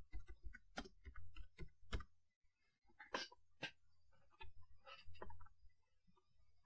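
Computer keyboard keys clicking in a quick run of typing, then a few separate mouse clicks about three and five seconds in.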